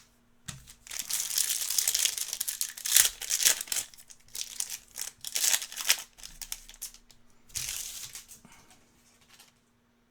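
Foil trading-card pack wrapper being torn open and crinkled by hand: dense, crackly rustling for about five seconds, a short pause, then another brief burst.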